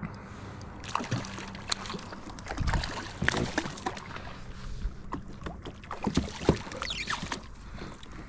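Irregular knocks, taps and small splashes around a kayak as the angler moves about in it, with a faint steady low hum underneath.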